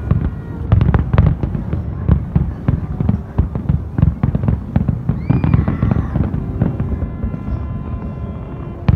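Fireworks display: rapid, overlapping bangs of aerial shells bursting. A rising whistle comes in about five seconds in, followed by held high tones.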